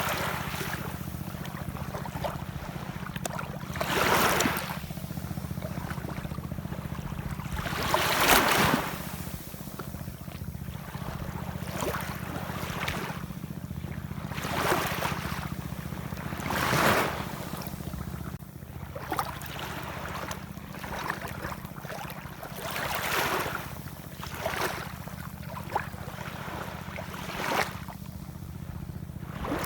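Ocean waves washing in, a swell of surf rising and falling every few seconds, over a steady low rumble.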